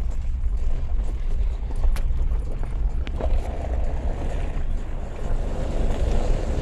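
Cabin noise of a moving vehicle: a steady low road-and-engine rumble.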